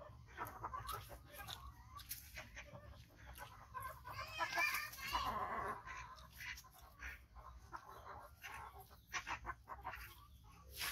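Chickens clucking: a string of short clucks, with a louder, wavering call from about four to six seconds in.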